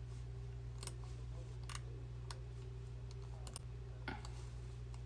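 Scattered single keystrokes on a computer keyboard, about half a dozen separate clicks, over a steady low hum.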